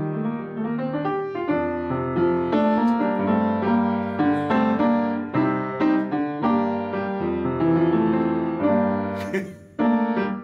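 Kawai upright piano played by hand: a steady run of chords and melody notes, which stops about nine seconds in and is followed by one last short chord.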